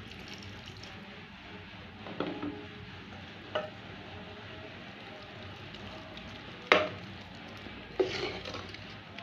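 A metal spoon stirs flour, spices and water into a thick batter in a metal pot, scraping steadily. The spoon clinks sharply against the pot four times, the loudest about two-thirds of the way through.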